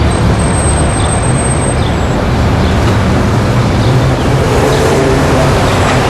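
City street traffic: cars and heavier vehicles such as buses and trucks driving past, a steady, dense rumble of engines and tyres. A thin high-pitched squeal lasts about a second and a half near the start.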